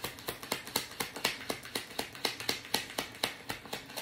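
A deck of tarot cards being shuffled by hand: a rapid, even run of card clicks, about eight a second.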